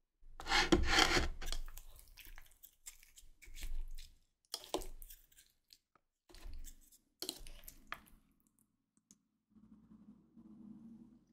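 Crispy baked baguette crust crackling as it is broken and eaten: one loud crackle in the first second or so, then scattered smaller crackles and clicks.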